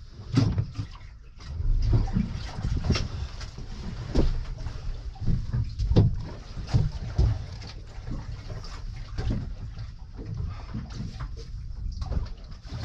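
Water slapping and sloshing against the hull of a small fishing boat drifting at sea, over a constant low rumble, with many irregular knocks and splashes.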